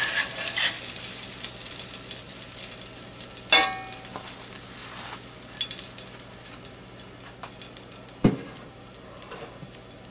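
Hot oil crackling and sizzling in a cast iron skillet as a battered fish fillet is lifted out with a metal spatula, dying down to a light crackle. A ringing metal clank comes about three and a half seconds in, and a dull thump comes near the end.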